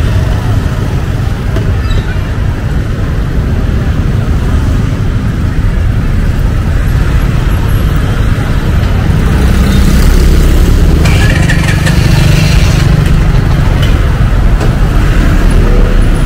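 Street traffic with a steady deep rumble of motorbikes and cars. It grows louder about ten seconds in as a vehicle passes close.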